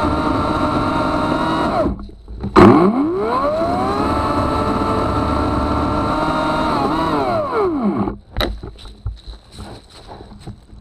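Ego Power+ CS1800 battery-powered chainsaw running at full speed, its chain cutting into wood with a steady high whine. It stops briefly about two seconds in, then spins back up with a rising whine after a click, holds steady, and winds down with a falling whine near eight seconds, followed by scattered light clicks and knocks.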